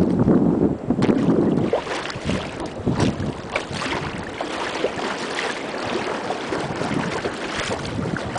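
Wind buffeting the microphone, heaviest in the first couple of seconds, over water splashing and sloshing around a kayak moving through choppy sea.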